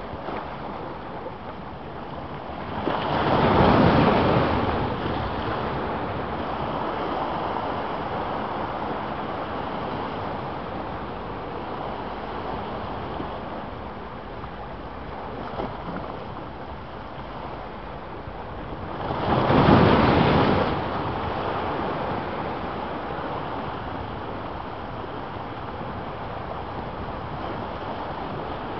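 Ocean surf breaking against a boulder seawall: a steady wash of waves, with two bigger waves crashing loudly, one a few seconds in and one past the middle.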